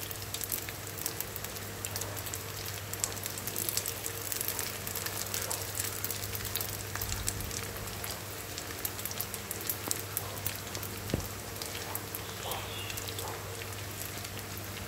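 Rounds of cooked rice shallow-frying in hot oil in a pan: a steady crackling sizzle with many fine pops, the rice crusts crisping as they fry golden on the underside.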